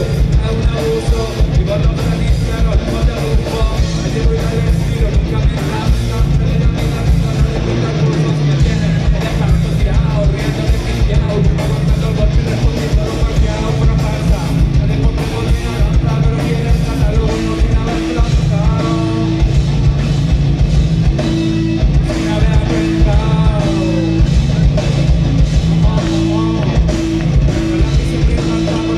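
Live rock band playing loud: electric guitars and a drum kit, with a singer.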